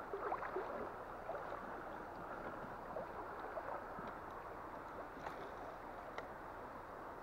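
River water rushing steadily over its bed, an even flowing sound, with a few faint clicks.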